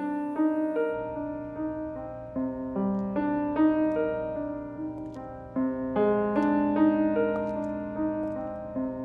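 Piano playing a repeating broken-chord figure, about two notes a second, over a low held bass note that comes in about a second in.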